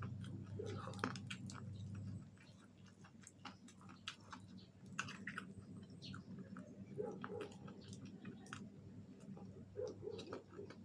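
Close-up chewing of fried chicken wings: soft, irregular mouth clicks and smacks.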